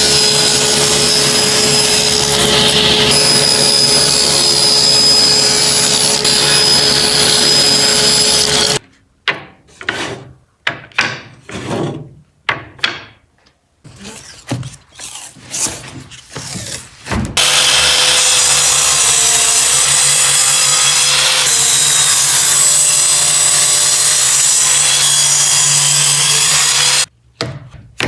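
A power tool running on wood for about nine seconds, then a stretch of scattered knocks and clatter, then the tool running again for about ten seconds with a slightly wavering pitch. It stops shortly before the end.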